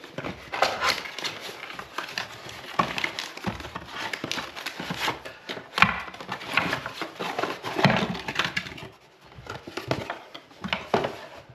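Household items being handled and unpacked from a package: irregular knocks, clacks and rustling, with a short lull near the end.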